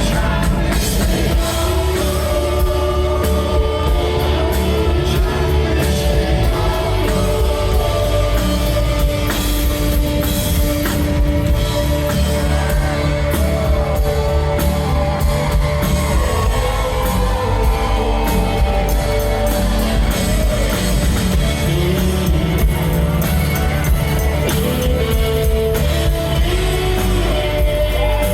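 Live rock band playing with singing: drum kit, bass and guitars under a sung vocal, heard in a large hall.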